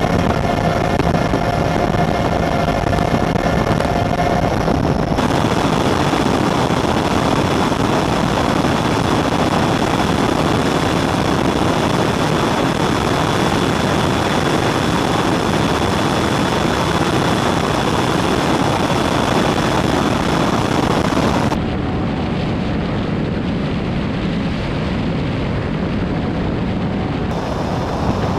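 Offshore racing catamaran running at over 150 mph, heard from a camera on its deck: a loud, steady rush of engine noise, wind and spray. It turns a little quieter and duller about three-quarters of the way through as the boat slows.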